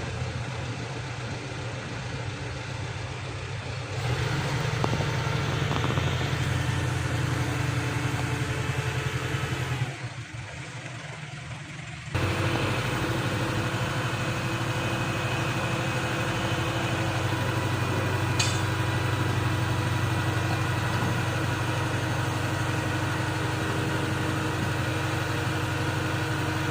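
An engine idling steadily, with abrupt jumps in level about 4, 10 and 12 seconds in.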